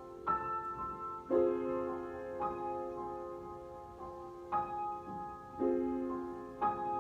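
Solo piano improvisation: slow, sustained chords struck roughly every one to two seconds and left to ring and fade.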